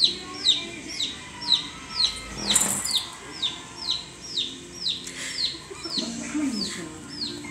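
Chick peeping: a steady, even run of short high peeps, each falling in pitch, about two a second. A brief rattle comes about two and a half seconds in.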